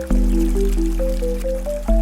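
Slow, calm background music: a melody of short stepping notes over held bass chords, with a new chord struck at the start and again near the end. Faint rain patters underneath.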